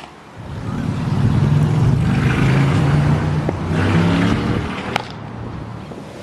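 A motor vehicle passing close by: its engine hum builds about a second in, holds, and fades away after about four and a half seconds. A single sharp click about five seconds in.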